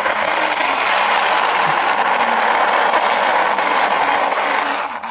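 Plastic toy excavator pushed by hand over rough concrete, its tracks and wheels grinding steadily, stopping abruptly about five seconds in.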